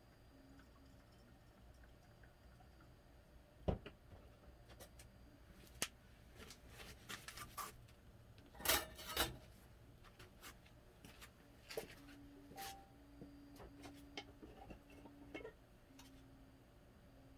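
Scattered clicks, taps and brief rubbing sounds of small objects being handled during hand cleanup of a resin 3D print. There is a sharp knock about four seconds in, and the loudest scrape comes about nine seconds in. A faint low tone pulses on and off in the second half.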